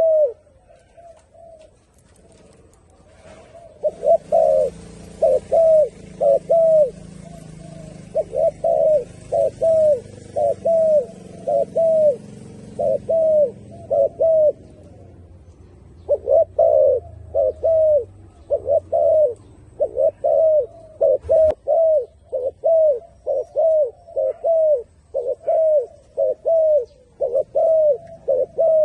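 Turtle dove cooing: long runs of short coo notes, each dropping in pitch, about two a second. The notes pause briefly near the start and again about halfway through.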